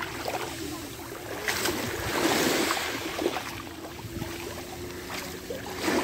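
Small sea waves washing in and out over a pebble beach, surging loudest about two seconds in and again near the end. A low steady hum runs underneath.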